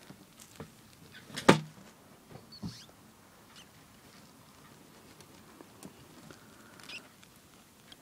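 Scattered light clicks and rustling in shredded-paper nest bedding as a mother rodent shifts over her newborn pups, with one sharp knock about one and a half seconds in.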